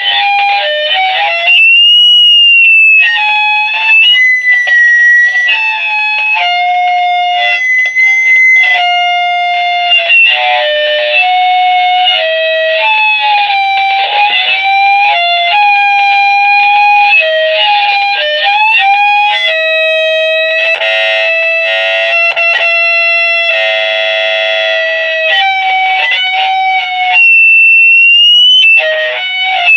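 A loud, shrill instrumental melody of held notes, with a high lone tone that bends about two seconds in and again near the end.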